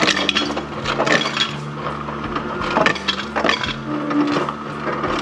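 Ice cubes dropping from a refrigerator door dispenser and clattering into a tumbler, in several uneven bursts of clinks.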